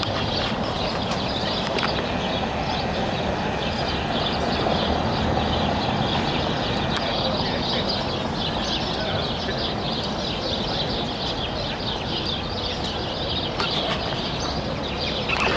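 Outdoor street ambience: a steady wash of traffic and distant chatter, with many small birds chirping high above it.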